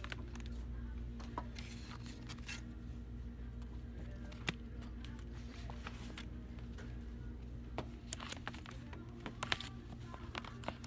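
Store ambience: a steady low hum with scattered light clicks, knocks and rustles, the sharpest knocks about four and a half and nine and a half seconds in.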